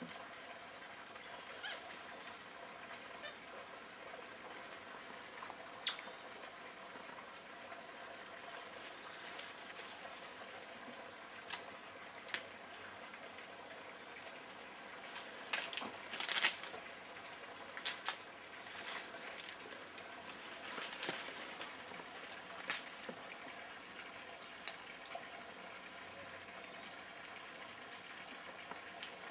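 Quiet tropical-forest ambience: a steady high-pitched drone throughout, with scattered short rustles and snaps in the leaves and branches, bunched together about halfway through, and a brief falling chirp about six seconds in.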